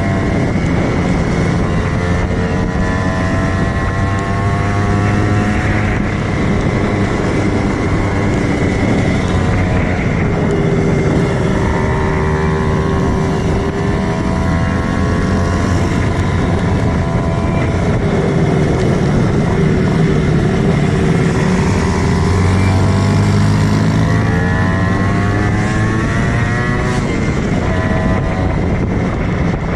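Kawasaki Ninja single-cylinder two-stroke motorcycle engine running under way, its pitch rising and falling again and again as it accelerates and eases off.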